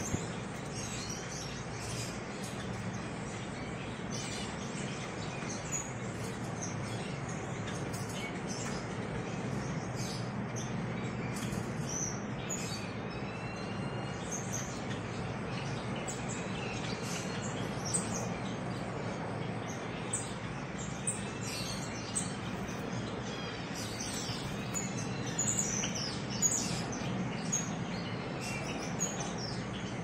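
Caged finches chirping in short high calls scattered throughout, busier near the end, over a steady background hiss.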